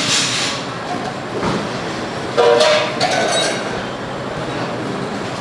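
Steady hubbub of a busy restaurant, with clinks of dishes and cutlery and two brief louder bursts, one at the start and one about two and a half seconds in.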